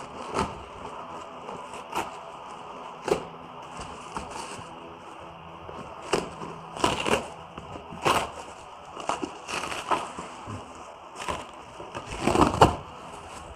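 Cardboard shipping box being torn and pried open by hand: irregular rips, crackles and scrapes of the cardboard, loudest near the end.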